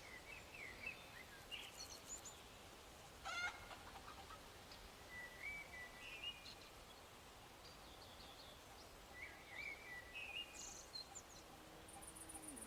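Faint bird chirps and short whistles, scattered over a quiet background hiss, with a sharper burst of chirps about three seconds in. A fast, high, evenly ticking trill starts near the end.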